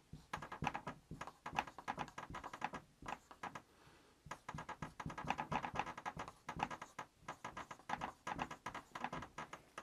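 Marker writing on a whiteboard: a quick run of short scratching strokes as letters are drawn, with a brief pause a little after three seconds in.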